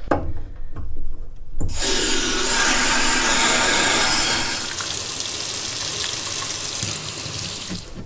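Water rushing steadily as the supply to a partly disassembled shower valve is turned back on; it starts suddenly about a second and a half in and eases a little about halfway through.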